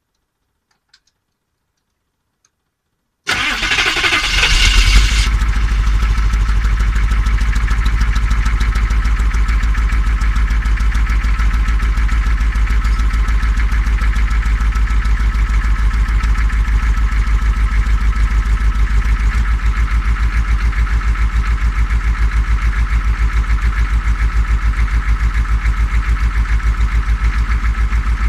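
About three seconds in, a 1989 Chevrolet G20 van's 6.2-litre diesel V8 starts and catches after a brief burst of noise, then idles steadily with a fast, even pulse. The engine has stood unused for a year and runs on a newly replaced fuel transfer pump and a freshly bled fuel system.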